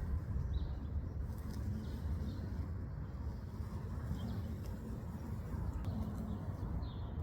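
Faint, short bird chirps every second or so over a steady low rumble.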